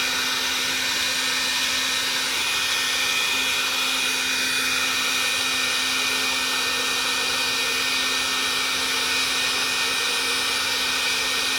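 Milwaukee heat gun running steadily on its highest setting, a constant blower hum with a faint steady whine, heating plastic to soften it.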